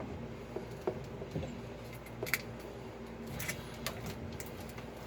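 Scattered light clicks and clinks of tools or parts being handled, over a steady low hum.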